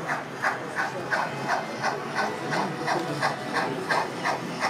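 Model GWR pannier tank locomotive's sound unit giving an even steam chuff, about three beats a second, as the model runs along.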